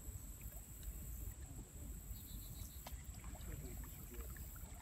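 Low rumble of wind on the microphone by the river, with a few faint clicks and a brief run of high, rapid ticking about two seconds in.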